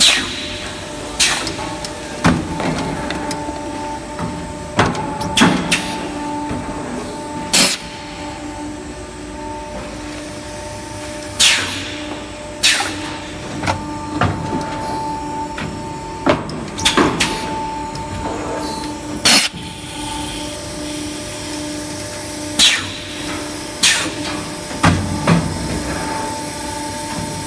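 A 4-cavity HDPE extrusion blow moulding machine running: a steady hum carrying two held tones, broken every one to four seconds by sharp clunks and short hisses of air as its moulds and pneumatics cycle.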